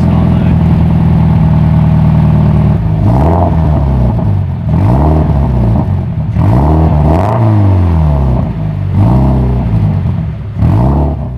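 Toyota GT86's 2.0-litre flat-four boxer engine through a Cobra non-resonated cat-back exhaust: it idles steadily for a few seconds, then is blipped up and down about six times. The exhaust note is loud.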